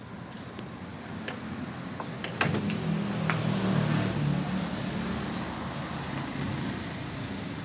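A motor vehicle engine passing by, swelling for a couple of seconds and then slowly fading, with a few sharp metallic clicks of hand tools before it.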